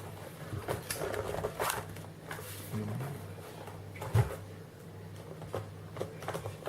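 Scattered clicks and knocks of an old laptop being handled and switched on, the loudest a single knock about four seconds in, over a steady low hum.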